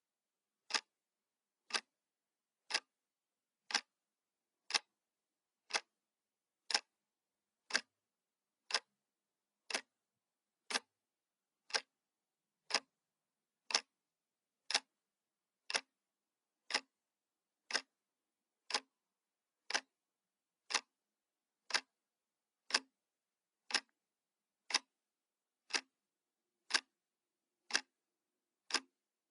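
Clock ticking sound effect: one short, sharp tick a second, perfectly even.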